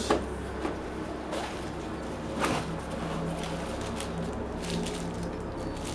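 Hands rustling through a soft netbook carry bag and crinkling the plastic sleeve of a driver CD as it is pulled out: scattered light rustles and clicks, one sharper one about halfway through, over a steady low hum.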